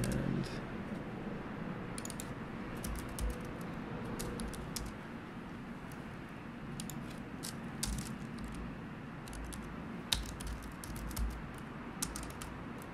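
Typing on a computer keyboard: irregular key clicks in short runs with pauses between them.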